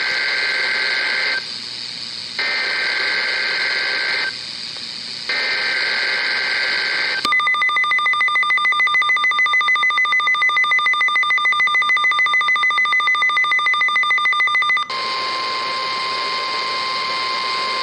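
Three short bursts of shrill warbling data tones about a second apart, from a WeatherX RWB8817DT weather radio's speaker: the SAME header of a NOAA Weather Radio Required Weekly Test. Then the radio's alert sounds: a high two-note beep pulsing about four times a second for some seven seconds, followed by a lower steady tone for about three seconds.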